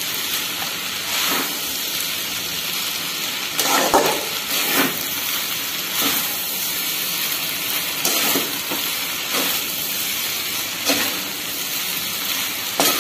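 Veg hakka noodles stir-frying in a metal kadai while being tossed with two ladles: a steady sizzle with irregular scrapes and knocks of the ladles against the pan.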